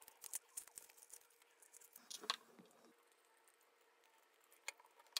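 Near silence with faint handling sounds: a few light clicks and a brief crackling rustle about two seconds in, from hands working small printed plastic parts and masking tape.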